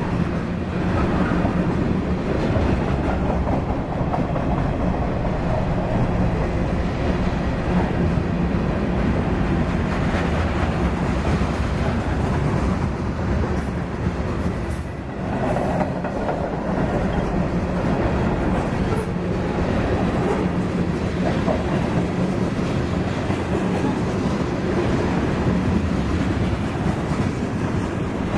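A long freight train's tank cars and covered hoppers rolling past close by: a steady rumble of steel wheels on the rails that goes on without a break.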